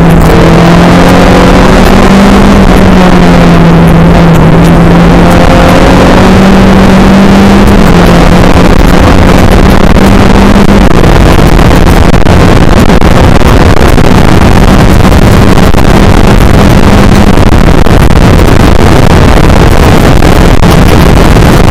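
Race car engine running at speed, its note holding fairly steady with small rises and dips, under a heavy roar of wind noise. The recording is overloaded throughout, and the engine note fades into the roar near the end.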